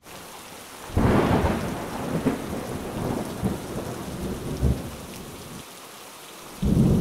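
Thunderstorm sound effect: steady rain with two thunderclaps, the first about a second in and rumbling on for about four seconds, the second near the end.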